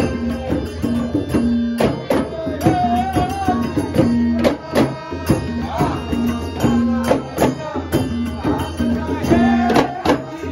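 Konkani ghumat folk music: a group of clay-pot ghumat drums and a dholki beaten together in a steady beat, with harmonium and a man singing the melody.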